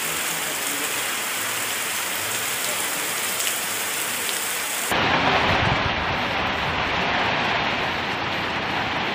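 Heavy rain pouring down, a steady hiss of falling water. About five seconds in it switches abruptly to a louder, deeper rush of rain.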